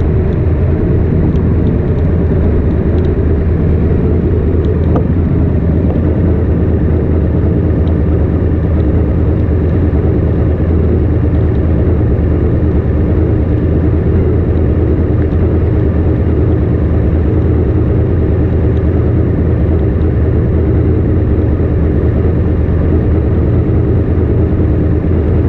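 Ducati Monster S2R's air-cooled L-twin idling steadily at a standstill, low-pitched and even.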